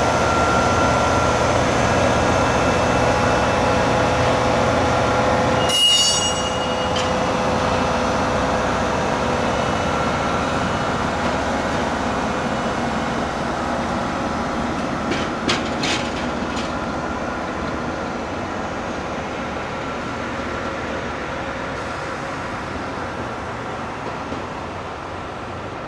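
Speno RR16-M14 rail grinding train rolling slowly past with its engines running, the sound slowly fading as it moves away. A sharp metallic clank rings out about six seconds in, and a few lighter clicks come a little past the middle.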